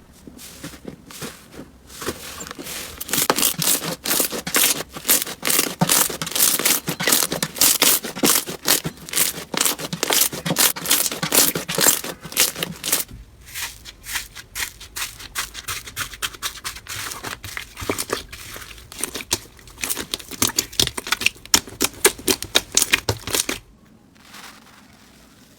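Slime being handled, making a dense run of crackling and popping clicks that thins to scattered sharper pops about halfway through and stops near the end.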